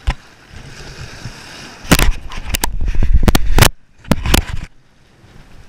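Handling noise on the camera: skin rubbing and knocking against the camera body and its microphone. A sharp click comes at the start, then loud clusters of scraping and thumping run from about two seconds to nearly four, with a shorter burst just after, before it drops back to a faint hiss.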